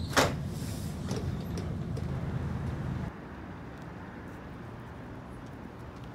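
Interior ride noise of a UTDC CLRV streetcar: a steady low rumble of motors and wheels on rail, with one sharp, ringing clank just after the start. About three seconds in it cuts abruptly to quieter, steady street noise.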